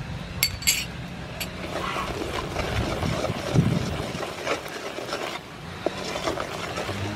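A wooden spoon stirring and scraping around a metal cooking pot of bubbling caramelized sugar and chopped garlic. A couple of sharp knocks of the spoon against the pot come about half a second in.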